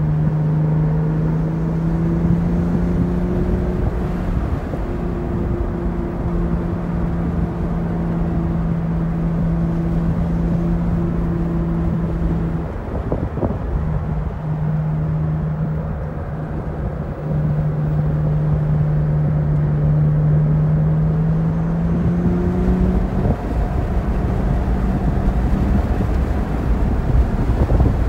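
Porsche 911 Targa 4S's twin-turbo flat-six running at steady revs under way on track, heard from inside the cabin over road and tyre noise. The engine note breaks off briefly about thirteen seconds in, then holds again, rises slightly around twenty-two seconds and drops away, leaving the road rumble.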